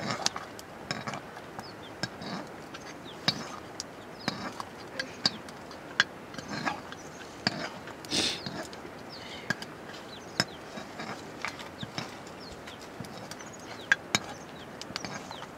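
A ladle stirring and knocking in a metal pot over an open wood fire, with irregular sharp clicks and taps and a short scrape about eight seconds in; the burning firewood crackles underneath.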